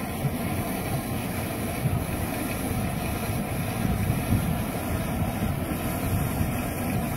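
Venturi aerators running in a shrimp pond: electric-motor pumps drive air-laden jets out of twin pipes, churning and splashing the water in a steady low rush.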